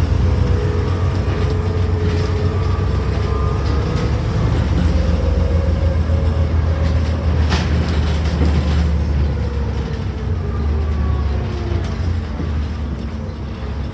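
Bus engine and drivetrain heard from inside the passenger saloon while the bus is under way: a steady low drone with a whine that slowly rises and falls in pitch. A single sharp click comes about seven and a half seconds in.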